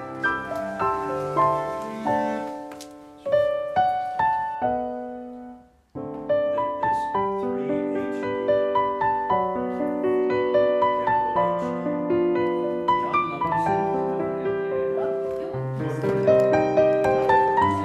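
Background piano music, single struck notes and chords ringing and decaying one after another. It fades almost to silence about six seconds in, then starts again.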